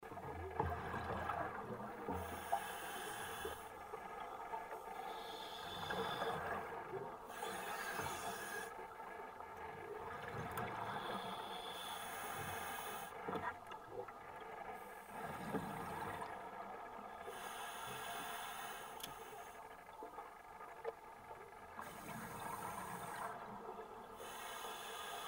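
Scuba diver breathing through a regulator underwater: a hiss comes and goes every two to three seconds over a steady hum.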